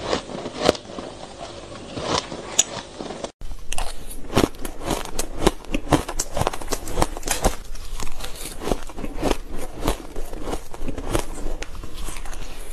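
Shaved ice being eaten with a metal spoon close to the microphone: dense crunching and crackling as it is scooped, bitten and chewed. The sound cuts out for a moment about three seconds in, then the crunching comes quicker and denser.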